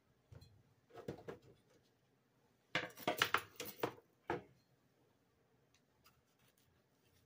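Food-prep handling sounds from a knife on a wooden cutting board and a plastic dehydrator tray while banana is sliced for drying: a few light taps, then a quick cluster of clicks and scrapes about three seconds in and one sharp knock just after.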